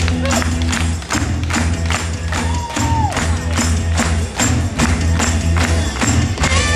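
Upbeat soul and rhythm-and-blues stage-show music over loudspeakers, starting at once with a heavy bass line and a steady driving beat with tambourine. About three seconds in, one held high note slides down at its end.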